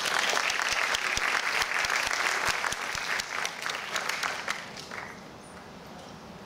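An auditorium audience applauding at the end of a talk: a burst of many hands clapping that starts at once, holds for about four seconds, then thins out and dies away.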